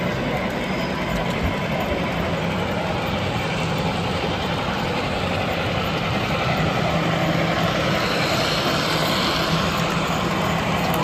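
HO-scale model train running along the layout track over a steady low hum and a dense rushing noise, which grows a little louder from about halfway through.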